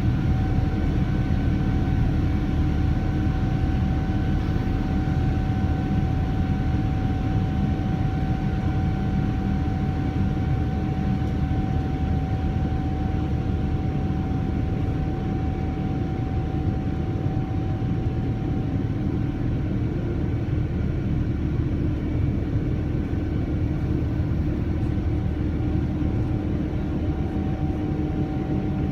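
Boeing 787-9 airliner in flight during its climb, heard as steady cabin noise: a deep rumble of engines and airflow with a steady whine from its Rolls-Royce Trent 1000 engines, easing slightly in level.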